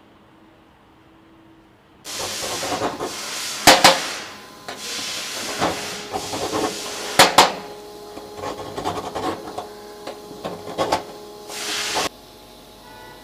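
Metal blade scraping carbon deposits off a small black block on a steel bench: uneven scraping strokes with a few sharp clacks, starting about two seconds in.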